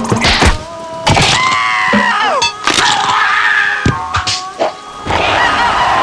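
Cartoon slapstick fight sound effects: a string of sharp whacks and thuds as one character strikes another, broken by pitched cartoon cries that glide downward, over music.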